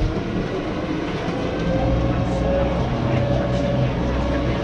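Glass-bottom tour boat's motor running with a steady hum, which grows fuller and a little louder about two seconds in.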